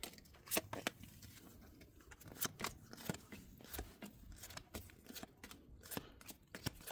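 Trading cards being handled and flipped through: soft, irregular snaps and slides of card stock.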